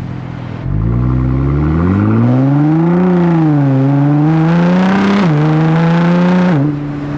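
Nissan GT-R R35's twin-turbo VR38 V6, with Cobb intakes and a non-catted midpipe, accelerating hard. The engine note climbs from about a second in, dips briefly and climbs again, then drops sharply twice near the end as the dual-clutch gearbox upshifts.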